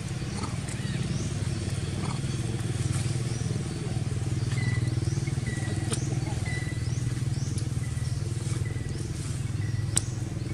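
An engine running steadily at a low, even pitch, with short high chirps repeating every second or two over it.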